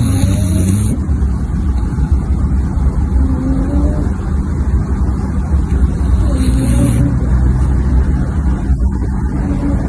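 A sleeping dog snoring: a continuous rumbling snore, with a faint whistling note recurring about every three seconds.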